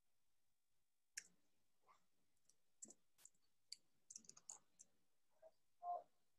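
Near silence broken by faint, irregular clicking of a computer mouse and keyboard, about a dozen small clicks starting about a second in.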